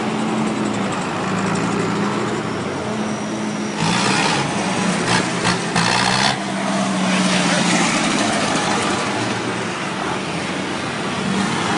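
Tractor engines running steadily as the tractors move off. A louder rushing noise joins in about four seconds in and lasts some two seconds.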